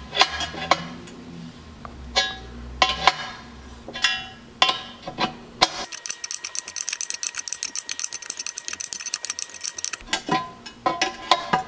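Adjustable wrench clinking against a steel EGR block-off plug as it is tightened into a BBK header: a series of sharp metal clinks over the first six seconds and again near the end. In between, a fast, even ticking runs for about four seconds, with background music.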